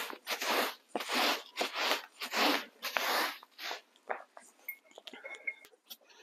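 A cloth wiping back and forth over a bubble-wrap-covered table, a quick run of six or seven rubbing strokes, then a few faint clicks and rustles in the last couple of seconds.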